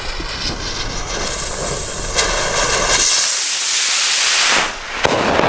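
Weco Big Block White firework rocket: the lit fuse sizzles and sputters, then the rocket motor ignites with a loud whooshing hiss about three seconds in as the rocket climbs. A single sharp crack comes near the end.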